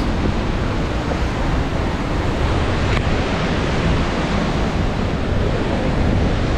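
Vernal Fall at its spring peak flow: a steady, loud rush of falling water, heaviest in the low end, with no let-up.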